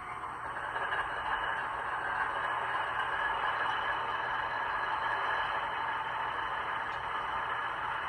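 An HO scale GE ET44AC model locomotive's DCC sound decoder playing its GEVO diesel engine running sound through the model's small speaker, steady and even.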